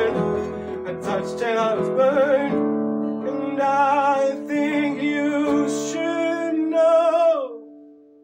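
Male voice singing with a Crafter acoustic guitar accompaniment. About seven seconds in, the voice slides down off a held note and stops, and the guitar's last notes ring on and fade.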